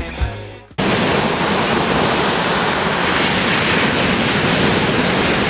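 Music breaks off abruptly under a second in, giving way to a steady, even rush of sea surf and wind.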